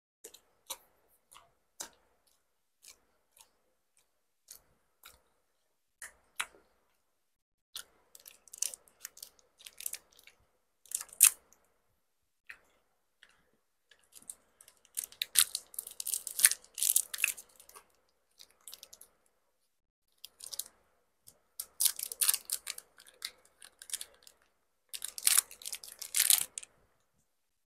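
Close-miked chewing and mouth clicks of someone eating bánh ít lá gai, a glutinous rice cake. Sparse single clicks at first grow denser from about eight seconds in, with bursts of crinkling near the end as a wrapped cake is unwrapped.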